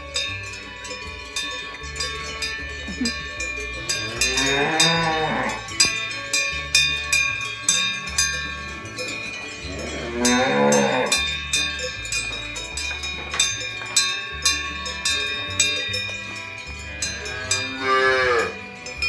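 Cows mooing, three long drawn-out calls, over bells clinking and ringing throughout.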